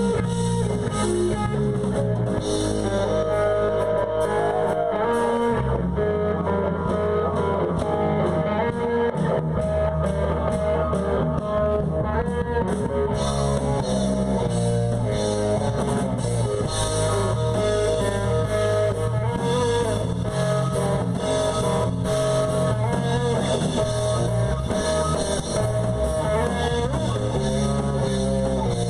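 Live band playing an instrumental passage of rock music, with guitar to the fore.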